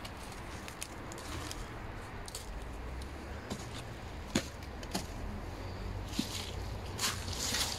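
Someone moving about and working in a soil bed: scattered small clicks and scuffs over a low rumble, with a sharp click about halfway through and a louder rustling scrape near the end.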